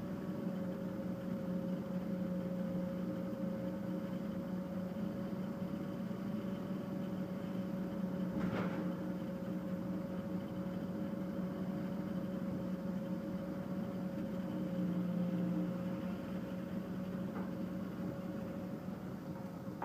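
Cambio 45 mobile debarker machinery running with a steady hum, with a single click about eight and a half seconds in.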